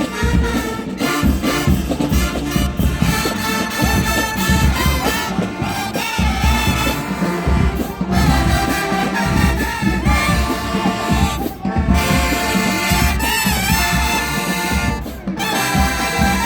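Marching band brass and drums playing a loud, brass-heavy tune in full chords over heavy bass drum hits. The band cuts off sharply for a split second several times.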